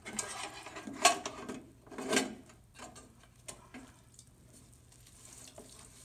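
A wet sponge scrubs and rubs a rusty metal bird feeder in a plastic basin of water, with sloshing and small knocks. Two louder clatters or splashes come about one and two seconds in, and the rubbing is quieter near the end.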